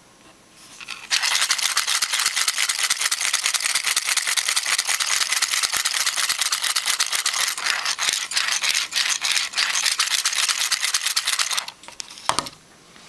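Hand-cranked 3D-printed PLA crank-and-piston generator rattling fast as the crank turns and the magnet piston shuttles through its copper coil. The rattle starts about a second in and stops near the end, followed by a couple of clicks.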